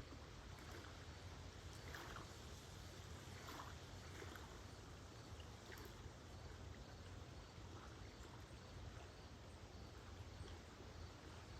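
Small, calm Lake Huron waves lapping softly at the shore, a few gentle splashes over a faint steady rumble.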